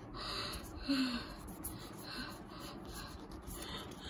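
A person's excited breathing: several short, breathy gasps and sharp breaths in a row. Light clicks of photocards being handled run under them.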